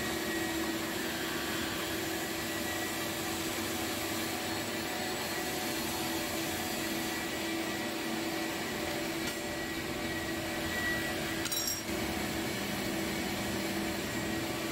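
A steady hum and hiss like a machine running, with a faint low steady tone and one brief click about three-quarters of the way through.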